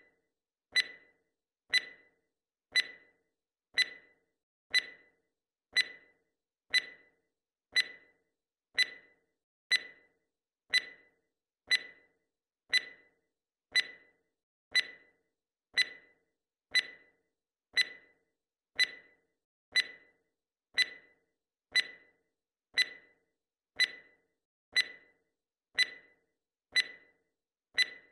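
Timer tick sound effect: one short, sharp click every second, evenly spaced, keeping time with the count.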